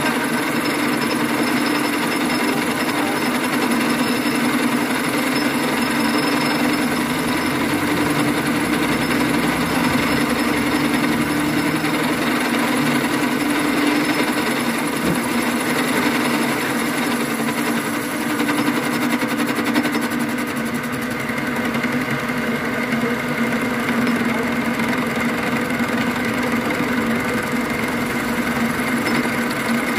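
Cylinder boring machine running steadily, its spindle and cutter boring out the cylinder opening of an aluminium motorcycle crankcase. The steady hum drops a little in pitch about twenty seconds in.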